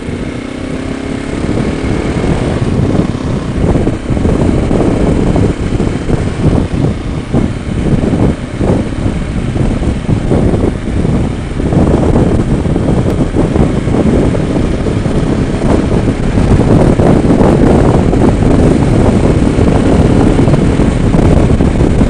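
Motorcycle engine accelerating, its pitch rising in the first couple of seconds, then wind rushing over the helmet microphone, growing louder as road speed builds.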